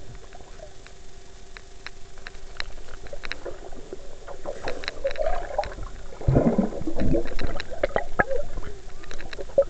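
Muffled underwater sound picked up by a sports camera in its waterproof case: scattered sharp clicks and knocks over a faint steady hum, with a louder gurgling rush of water about six seconds in.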